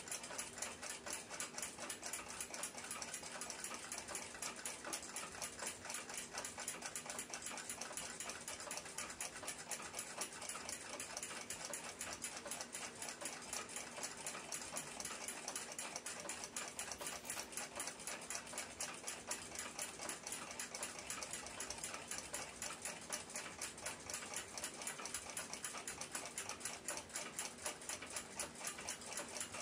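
Faint, steady, fast ticking of a running mechanical timepiece, about five to six even ticks a second.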